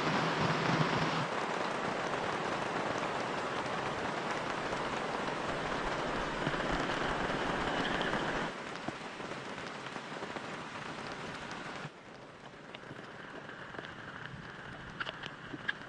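Rain falling in a steady hiss that gets quieter in two steps, with separate drops tapping near the end.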